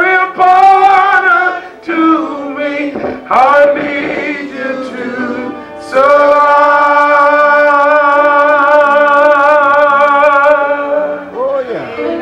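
Church singing: a voice sings short phrases with a wavering vibrato, then holds one long note for about five seconds before the phrase falls away.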